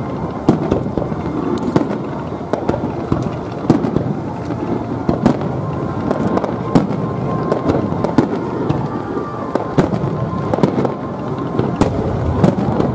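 Fireworks display: aerial shells bursting one after another, a dense run of sharp bangs over a continuous low rumble.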